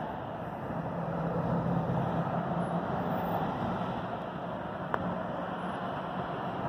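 Road traffic passing on a nearby street: a steady rush of vehicles, with an engine hum swelling during the first few seconds. A single sharp click comes about five seconds in.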